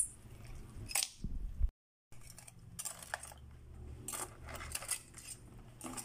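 Live crabs clicking and scraping their shells and claws against a metal wok, in scattered sharp clinks. The sound drops out for a moment at a cut about two seconds in, then more scattered clicks and knocks follow as the crabs move in a basin of washing water.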